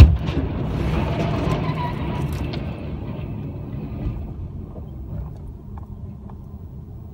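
Overloaded log truck overturning: a loud crash as it hits the road right at the start, then a rumble of the load of logs tumbling and settling that slowly dies away, with a few light knocks near the end.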